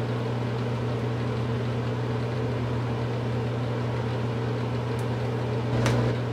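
Steady low mechanical hum, like a room fan or motor, with a sharp snap about six seconds in: an elastic hair tie breaking as it is wrapped around a bun.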